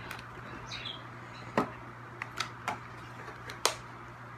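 Packaging being handled and pried at while a nail polish bottle is worked out of it: about five scattered sharp clicks and taps, with one brief faint high chirp about a second in.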